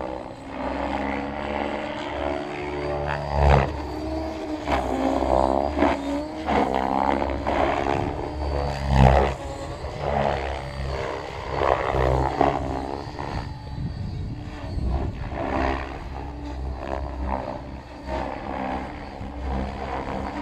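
Thunder Tiger Raptor E700 electric RC helicopter flying, with its main and tail rotors and motor running. The pitch keeps rising and falling as it manoeuvres.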